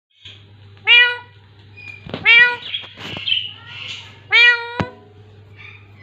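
Green parakeet imitating a cat: three loud mewing calls, each rising then falling in pitch, about one, two and a quarter, and four and a half seconds in, with softer chattering between the second and third. A steady low hum runs underneath.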